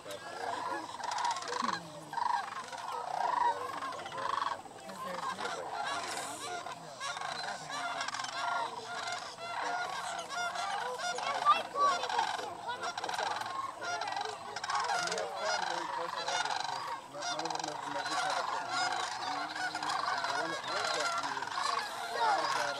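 A large flock of sandhill cranes calling: many overlapping calls without a break, with one louder call about halfway through.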